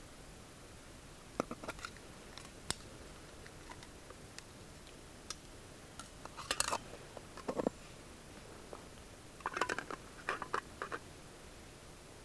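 Handling noise from a small round case and camping gear being opened and set down by hand: scattered sharp clicks and short scraping rustles in a few clusters.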